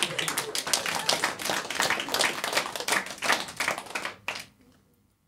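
Audience applauding: a dense patter of many hands clapping that thins out and stops about four and a half seconds in.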